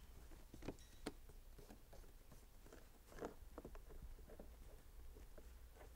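Near silence with faint, scattered taps and rubbing as a rubber floor mat's nubs are pressed by hand into the holes of a scooter's plastic floorboard, a couple of taps a little louder about a second and about three seconds in.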